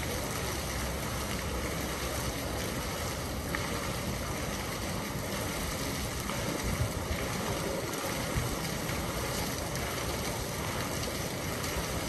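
Water from a fountain's spout and jets falling into its basin: a steady splashing rush.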